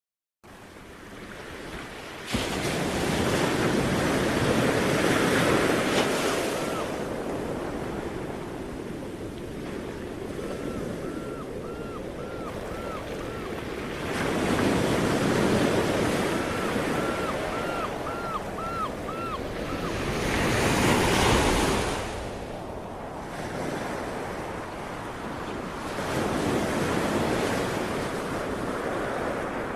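Sea waves washing onto the shore in slow surges, each swelling and ebbing over several seconds. The sound fades in over the first two seconds.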